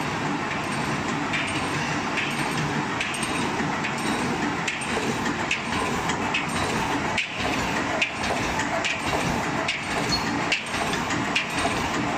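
Automatic wire mesh welding machine running, a steady mechanical din with a regular clack a little more than once a second as each row of cross-wire welds is made and the mesh advances.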